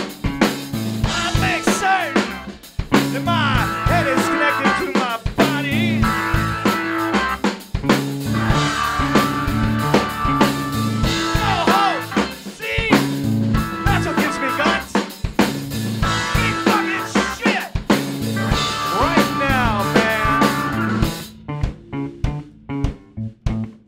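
Live rock trio playing: electric bass walking through a busy stepping line, a drum kit and an electric keyboard holding sustained chords. Near the end the keyboard drops out, leaving only the bass and drum hits.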